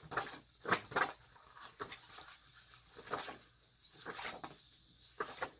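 Stiff paper recipe cards being shuffled and flipped through by hand: a string of short, irregular rustles and flicks.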